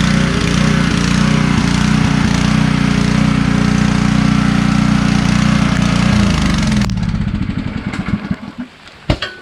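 Pressure washer running steadily with its water spray hissing, then the motor winds down in pitch and stops about six to seven seconds in as the spray cuts off, leaving a few light clicks and knocks.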